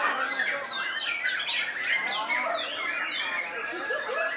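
Several white-rumped shamas (murai batu) singing at once: a dense overlap of rapid rising and falling whistles.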